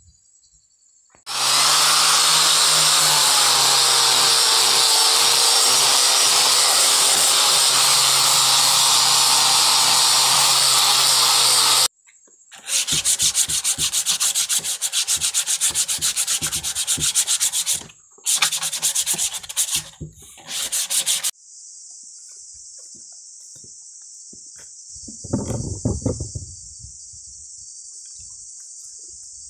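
A power sander running steadily on wood for about ten seconds. After a short pause, sandpaper is rubbed by hand in quick back-and-forth strokes along a round branch leg, stopping and starting a few times. Near the end only crickets chirp.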